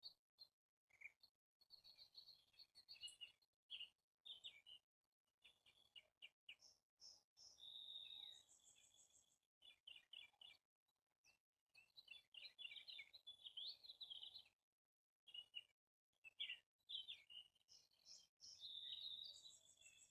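Faint songbirds chirping and singing: a busy run of short high chirps, trills and whistled notes from several birds, with brief pauses between phrases.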